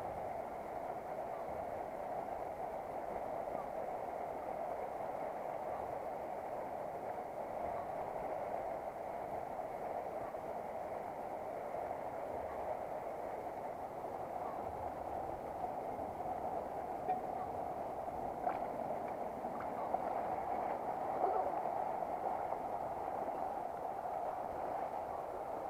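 Shallow, stony river flowing past with a steady rushing sound. A few faint clicks are heard in the later part.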